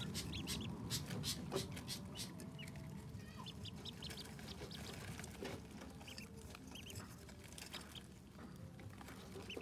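Ducklings giving short, high peeps here and there as they feed, over many quick clicks and patters of their bills pecking at food dishes. The clicks are thickest in the first couple of seconds.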